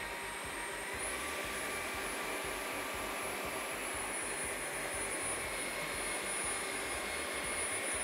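Dreame H12 Pro wet/dry floor vacuum running as it is pushed over the floor: a steady rushing suction with a motor whine that steps up in pitch about a second in.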